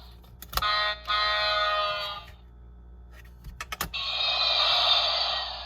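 Clicks of the buttons on a Fisher-Price GeoTrax toy train remote control, each followed by an electronic sound effect. First comes a pitched electronic tone lasting about a second and a half, then a hissing sound of about the same length near the end.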